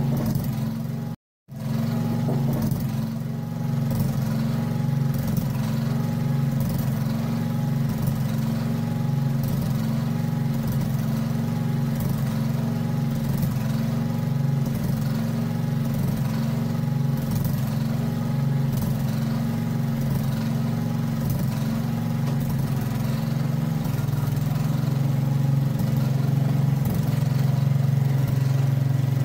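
Tractor-mounted backhoe's engine running at a steady speed while its hydraulic boom is worked, getting a little louder near the end. The sound cuts out briefly about a second in.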